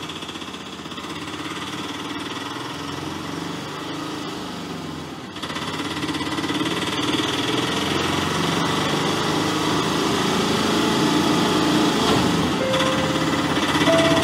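Auto-rickshaw's small engine running with a rapid pulsing chug, growing louder as it drives closer, with a jump in level about five seconds in.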